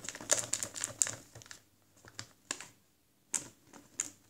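A stirring stick clicking and scraping against the sides of a small plastic tub while mixing tempera paint: a quick run of clicks over the first second and a half, then a few separate taps.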